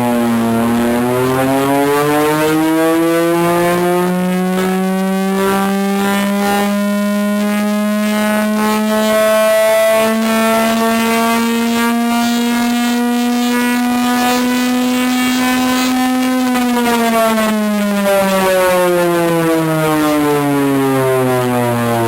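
Chrysler air raid siren, driven by its Hemi 331 V8, wailing very loudly. Its howl climbs slowly in pitch for about fifteen seconds as it spins up, then falls steadily as it winds down.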